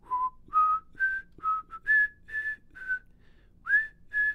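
A person whistling a tune to himself: a slow run of about ten clear single notes, one sliding up in pitch near the end.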